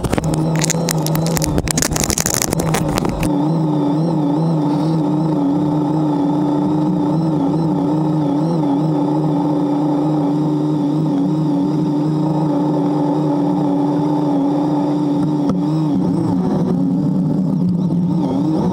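Motorcycle engine running steadily under way, its pitch wavering slightly with the throttle. It opens with about three seconds of knocks and rustling.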